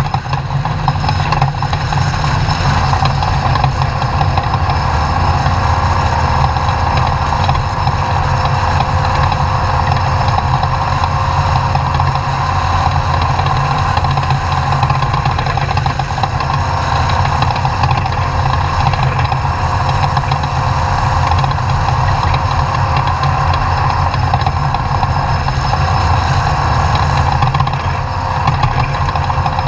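Off-road race truck engine running steadily at an even level, with no clear revving up or down, under a dense, constant haze of noise.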